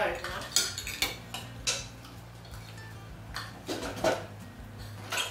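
Metal forks and spoons clinking and scraping on ceramic plates and bowls during a meal: sharp clinks about half a second apart in the first two seconds, a cluster about three to four seconds in, and another near the end. A steady low hum runs underneath.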